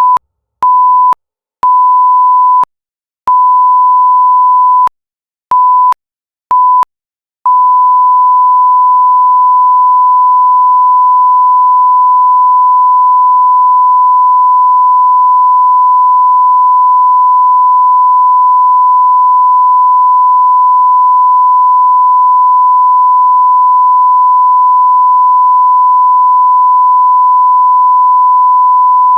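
Electronic beep tone of the kind used to bleep out swearing: one pure, steady pitch. It sounds first as six short beeps of uneven length, then holds without a break from about seven seconds in.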